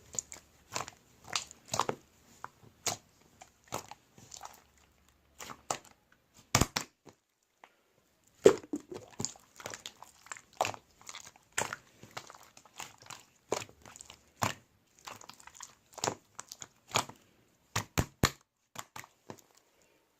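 Pink clay slime being squeezed and pressed by hand, giving irregular sharp clicks and crackling pops, several a second, with a short pause about seven seconds in.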